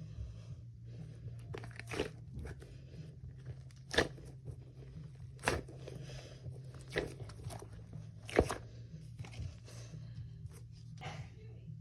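Plastic packaging being handled and torn open for unboxing, with irregular crinkles and crackles and a few sharper snaps, over a low steady hum.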